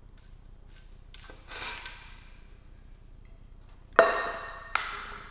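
A short scrape, then two sharp clinks of a spoon against a hard dish about four seconds in, the first ringing briefly.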